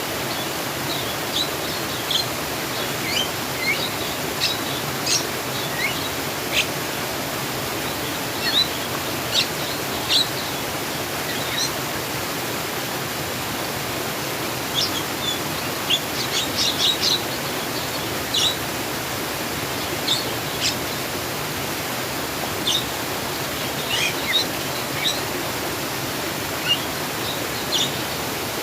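Steady rush of flowing water with small birds chirping on and off over it, short high chirps scattered throughout and a quick run of them about halfway through.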